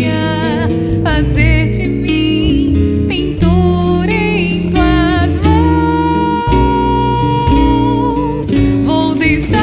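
A woman singing a slow Portuguese worship song with vibrato over band accompaniment led by nylon-string acoustic guitar; she holds one long note in the middle.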